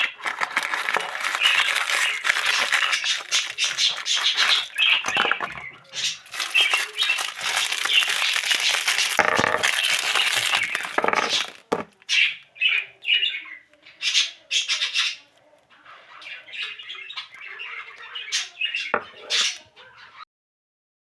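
Birds chirping and calling, a dense continuous chatter for about the first eleven seconds, then thinning to separate calls with short gaps; the sound cuts off shortly before the end.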